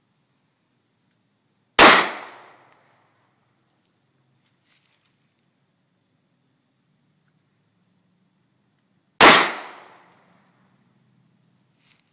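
Two shots from a Smith & Wesson .40-caliber handgun, about seven and a half seconds apart, each loud and sharp with a short fading tail.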